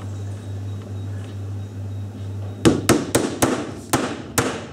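Hammer driving a nail into a sheet of masonite hardboard. About two and a half seconds in come about seven quick, sharp taps in under two seconds.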